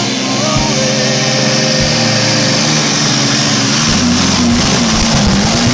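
John Deere 8345R Super Farm pulling tractor's diesel engine running hard under load down the pulling track, a loud steady drone whose pitch wavers about two-thirds of the way through.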